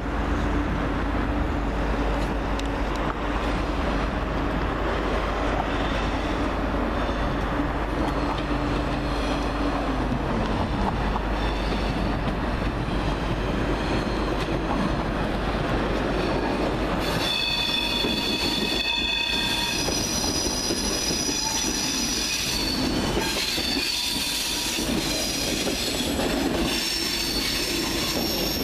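TGV high-speed train running slowly over the station approach tracks: a steady rumble with a low motor hum that drops in pitch about a third of the way in. From a little past halfway, high steady wheel squeal joins the rumble as the wheels grind through the curves and points while the train passes beneath.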